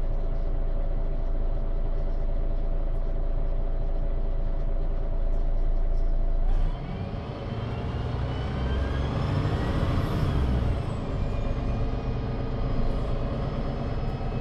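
Diesel engine of a 2001 MAN NG313 articulated bus, a MAN D2866 LUH24 with a Voith D864.3E automatic gearbox, heard from inside the passenger cabin. It runs at a steady note, then about seven seconds in the bus accelerates: the engine and gearbox whine rise in pitch for about three seconds and then ease down.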